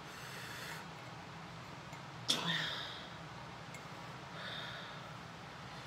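A person's short, sharp breaths blown out through pursed lips. The loudest comes suddenly about two seconds in, with fainter hissing breaths around it. She is blowing to cool a mouth burning from extra-spicy noodles.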